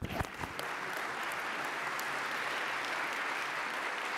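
Audience applauding steadily in a large hall, with a couple of soft knocks as the clapping begins.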